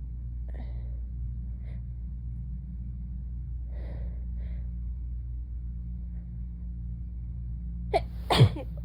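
A woman's short gasping breaths, then near the end a catch of breath and one sharp, loud sneeze, over a steady low hum.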